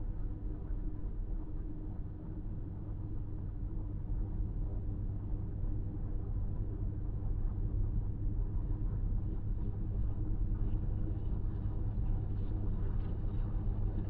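Steady low rumble of tyre and engine noise inside a car cruising at highway speed, growing a little louder in the second half.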